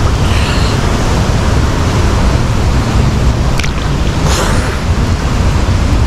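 Flowing river water rushing and splashing right at the microphone, a loud steady rush with a heavy low rumble, with a couple of sharper splashes about three and a half and four and a half seconds in.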